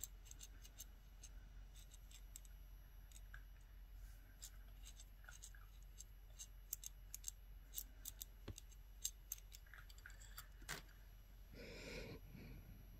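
Faint, irregular scratching and ticking of a hand bead reamer grinding inside the too-small hole of a natural pearl, the hole enlarged by hand so the pearl will fit on the wire. A short soft noise near the end.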